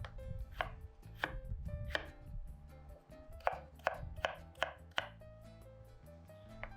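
Kitchen knife chopping on a cutting board: about ten sharp strokes, with a short pause a couple of seconds in.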